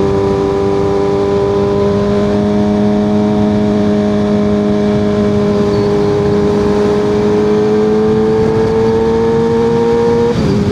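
Kawasaki ZX6R 636's inline-four running through an unbaffled M4 exhaust, close to a straight pipe, while riding. The engine holds steady revs, rises slowly in pitch over the last few seconds, then drops near the end, as at a gear change.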